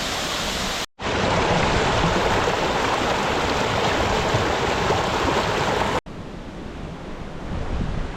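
Waterfall rushing with a steady noise of falling water. It breaks off sharply twice and comes back at a different level, loudest through the middle and softer near the end.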